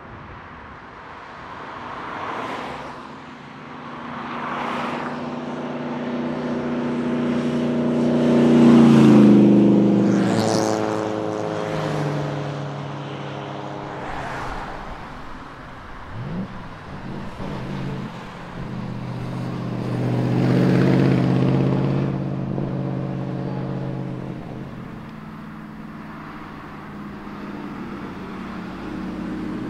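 Classic and vintage car engines passing one after another, each swelling and fading away. The loudest pass comes about a third of the way in, its note dropping in pitch as it goes by, and another comes about two-thirds of the way through.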